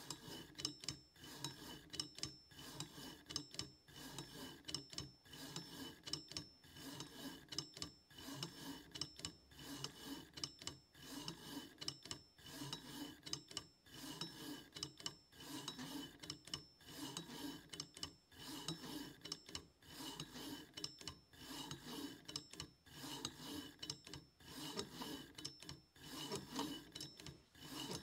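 Stepper motor turning a safe combination lock's dial back and forth, with a faint repeated rasping whir and small clicks as the dial is driven to the contact points over and over. This is the automated dialer taking contact-point readings while graphing one wheel of the wheel pack.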